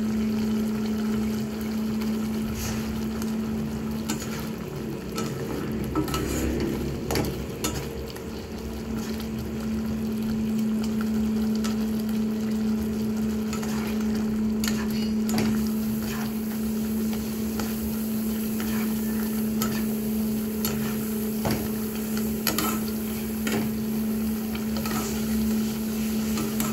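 Plastic slotted spatula stirring simmering misua noodle and sardine soup in a non-stick wok, with irregular clicks and scrapes against the pan over the bubbling of the broth. A steady low hum runs underneath.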